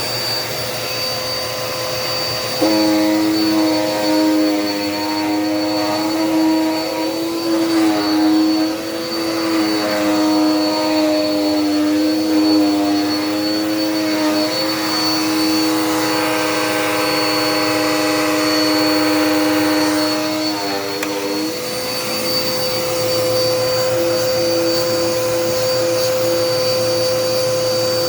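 Dirt Devil Power Max vacuum cleaner running steadily with a motor whine. From about three seconds in until about twenty-one seconds in, an extra lower, slightly wavering hum rides on top of it.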